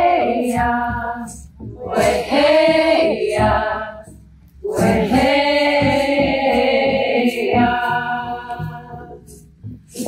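A group of women singing a chant together in three long phrases with short breaks between them, ending on held notes.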